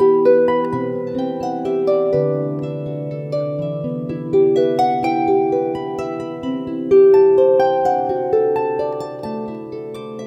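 Background music: a melody of plucked string notes over held lower notes.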